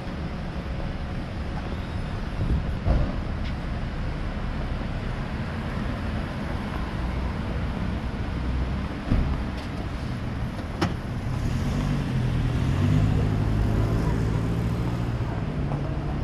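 Road traffic on a city street, with cars passing. A vehicle engine comes up louder from about eleven seconds in, and a few sharp knocks stand out.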